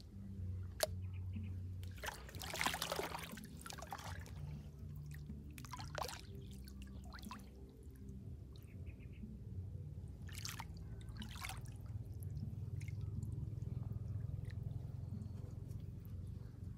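Hands splashing and sloshing in shallow water, with a few short splashes a couple of seconds apart over a steady low rumble.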